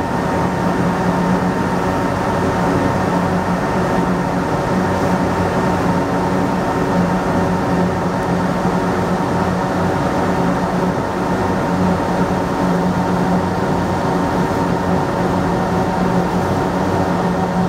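A steady engine drone: a deep hum with a higher whine over it. It holds unchanged throughout, with no revving.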